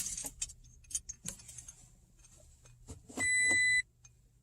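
Key fob and keys clicking and rattling against the push-button start, then about three seconds in a single short electronic warning beep from the 2016 Toyota Tacoma, which cuts off sharply: the truck is not recognising the fob, whose battery is dead, and the engine does not start.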